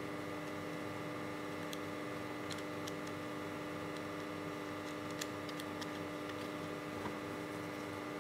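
Steady electrical mains-type hum, with a scattering of faint light clicks from small parts being handled on a plastic project box while a nut is fitted and secured.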